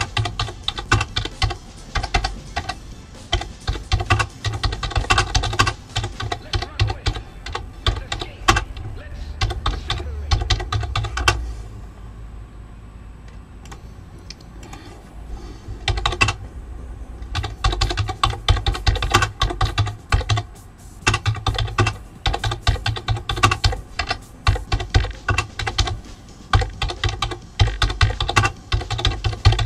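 Typing on a computer keyboard: rapid runs of keystrokes, broken by a pause of a few seconds about halfway through.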